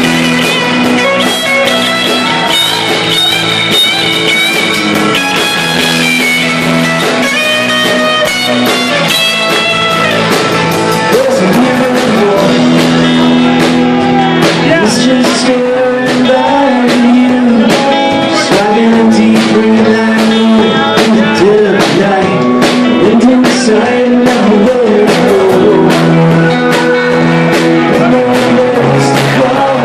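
A live rock band playing loudly: two electric guitars, one a Telecaster-style and one a semi-hollow body, with bass guitar and drums, and a man singing lead.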